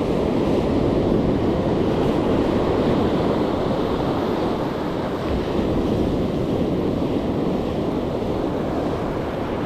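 Ocean surf washing on a sandy beach, a steady wash of noise, with wind buffeting the microphone.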